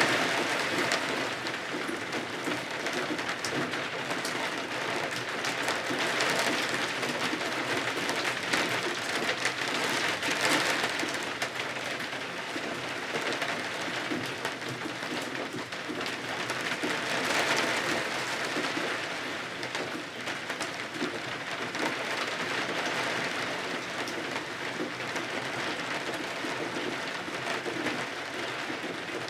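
Steady rain pattering against windows, a dense hiss that swells and eases every few seconds.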